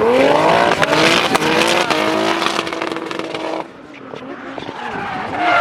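Turbocharged BMW E46 M3 drift car's engine revving up hard over the first second and holding a steady high note, then cutting off suddenly about three and a half seconds in before climbing again near the end, with tyres squealing under it.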